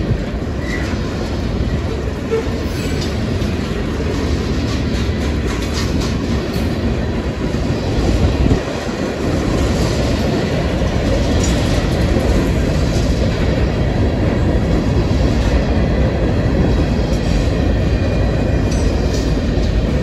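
Freight cars (covered hoppers and tank cars) rolling steadily past at close range: a continuous rumble of steel wheels on rail, with scattered sharp clicks and a brief louder bump about eight seconds in.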